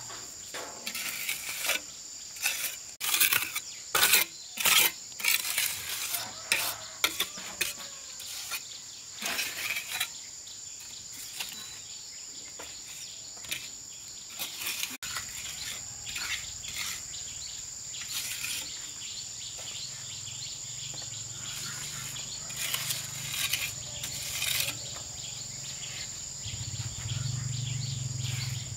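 Steady high chirring of insects, with irregular scraping and knocking strokes of hand work over it, dense in the first half and sparser later. After about halfway a low hum joins, growing louder near the end.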